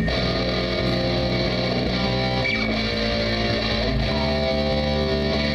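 Electric guitars and bass guitar playing held, ringing chords, changing chord about two and a half seconds in and again about four seconds in.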